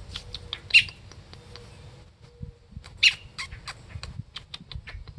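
Baby bird calling with short, sharp, high-pitched squawks, two loud ones about a second in and about three seconds in, with quicker faint chirps in between.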